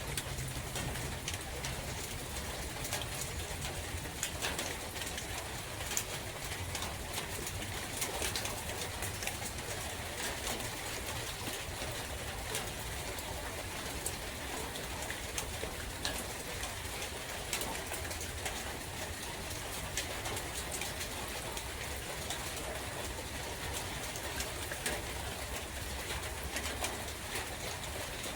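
Steady rain falling in a forest, an even patter with scattered drops ticking sharply over a low rumble of wind.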